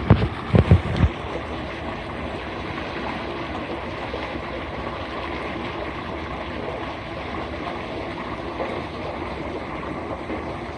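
Steady rush of water from the just-started pool pump filling the spa, after a few low thumps in the first second.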